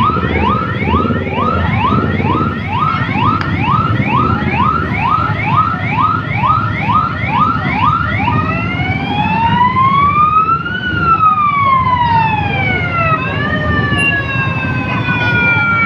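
Electronic siren sounding a fast yelp, about two and a half rising sweeps a second, then switching about eight seconds in to a slow wail that rises and falls, over the steady running of many motorcycle engines.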